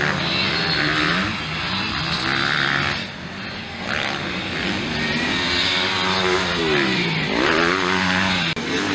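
250cc motocross bike engines revving hard, the pitch climbing and falling with throttle and gear changes. About seven seconds in the pitch drops low and then climbs again.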